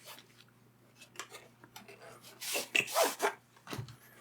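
A pen box and its packaging being handled and opened: scattered clicks and rubbing, then a louder burst of rustling and scraping about two and a half seconds in, and a soft thump near the end.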